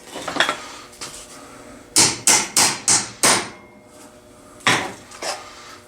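Sharp knocks from working a rusted vise-grip locking pliers free: five quick strikes about two seconds in, then one more and a fainter one later.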